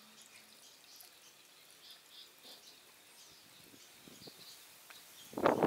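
Faint outdoor ambience with scattered short, high chirps. Near the end a sudden loud burst of rustling noise starts.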